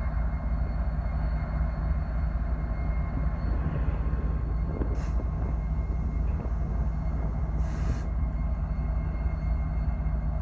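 BNSF diesel freight train rolling past: a steady low rumble with a faint constant hum. Two short hissing noises come about five and eight seconds in.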